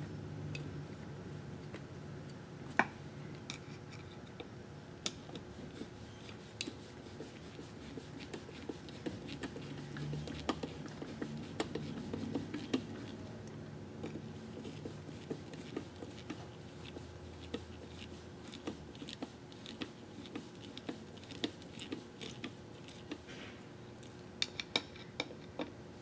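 Irregular small metallic clicks and scrapes of a Phillips screwdriver driving the little pan-head screws of a motor's bearing retainer and of the steel end bell being handled, with one sharper click about three seconds in.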